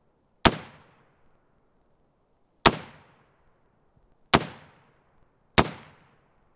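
Four single shots from an AR-15 rifle, fired one at a time about one to two seconds apart. Each shot has a short echo that dies away.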